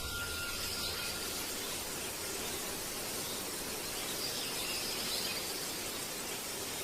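A steady, even hiss of noise with no distinct events, and a faint steady tone in the first second.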